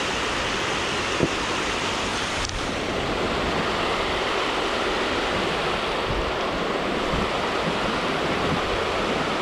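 Water rushing steadily over a shallow weir, a continuous even rush of falling water.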